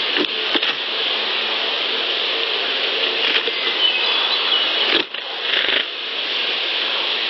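Steady hiss with a few faint clicks and soft rustles, which the recordist takes for something moving near the unattended recorder. The level dips briefly about five seconds in.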